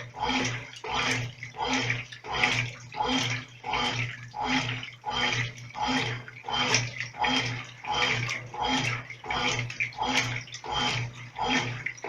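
Brastemp Clean 5 kg top-loading washing machine agitating a load on the delicate setting. The agitator motor hums in short, even strokes, about one and a half a second, with water sloshing in the tub.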